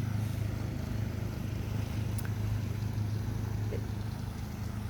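A steady low hum, like a motor running, over a faint even background noise, with a faint tick about two seconds in.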